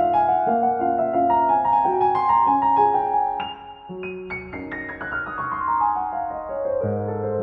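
Background piano music: a slow melody of single notes and chords, dipping briefly just past halfway, then a descending run of notes and a low chord near the end.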